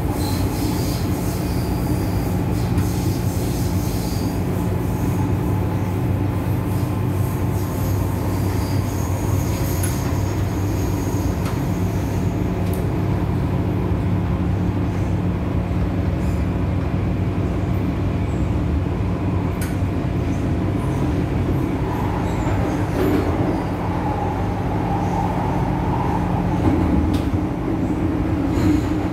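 Inside an MTR Island Line M-Train electric metro car running at speed: a steady rumble of steel wheels on rail under a low traction hum, with occasional clicks from the track. A higher whine comes in over the last several seconds.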